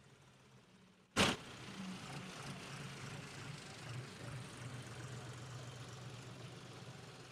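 A tractor engine idling steadily, with a single sharp click or knock about a second in, after which the engine sounds louder.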